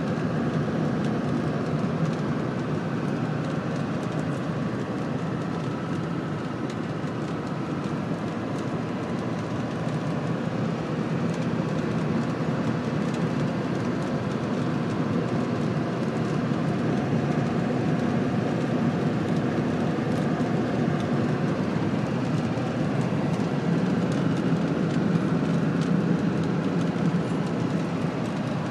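Steady road and engine noise of a truck heard from inside the cab while driving along a highway, even and unchanging throughout.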